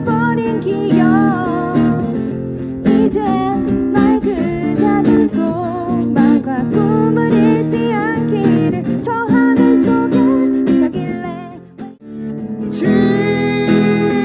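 Band music with strummed acoustic guitar chords under a wavering sung melody. The music drops out almost completely about twelve seconds in, then comes back with fuller, held chords.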